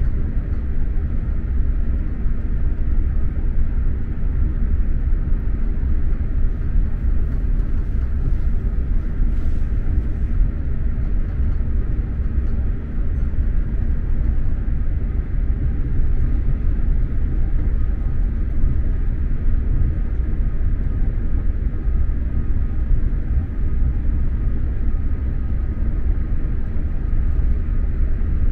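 SJ X2000 electric train running along the line, heard from inside the passenger car: a steady, loud low rumble of wheels on track with faint steady tones above it.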